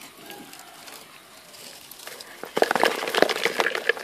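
Live freshwater shrimp being shaken from a mesh trap into a plastic bucket. A faint rustle at first, then, about two and a half seconds in, a dense run of quick clicks and rustles from the mesh and the flicking shrimp.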